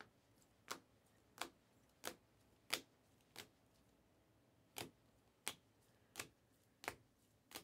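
Rigid plastic card toploaders clicking against one another as cards are moved one at a time through a stack. About ten sharp clicks, roughly one every two-thirds of a second, with a short pause midway.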